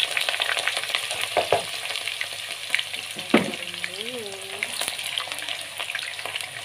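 Potato wedges deep-frying in hot oil in a wok, a steady crackling sizzle. A sharp knock comes about three and a half seconds in, and a spatula stirs the potatoes near the end.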